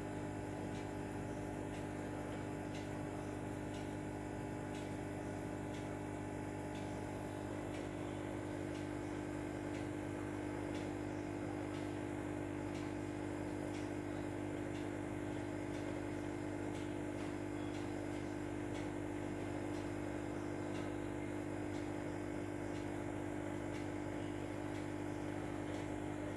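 A steady mechanical hum with several fixed tones and faint regular ticks, unchanging throughout.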